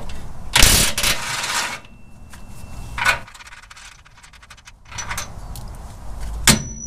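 Impact gun on a panhard bar mounting bolt, running in a loud burst of about a second, then a shorter burst, followed by quieter rapid metallic clicking and a sharp clink near the end.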